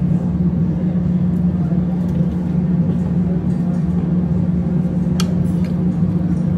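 A steady low mechanical hum, unchanging in level, with a light metallic click of a spoon against the aluminium pot about five seconds in.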